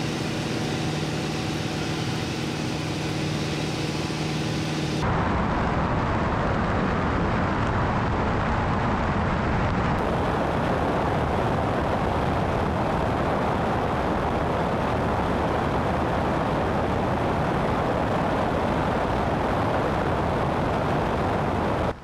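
Single-engine light airplane in cruise: a steady engine drone in the cabin, then, about five seconds in, a sudden change to a loud, even rush of slipstream wind and engine noise on a microphone outside on the wing.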